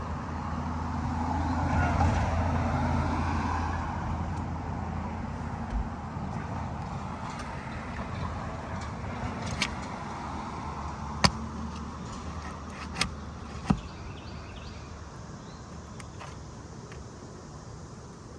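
A car passes by, its engine and tyre noise swelling about two seconds in and fading away. Later come a few sharp clicks or taps.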